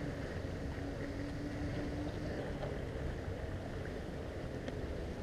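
Steady low outdoor rumble with a faint distant motor hum whose pitch shifts partway through, and a light click near the end.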